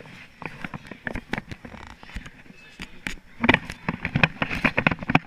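Knocks and rustles on a chest-mounted GoPro camera as hands and clothing brush against it, denser and louder in the last two seconds.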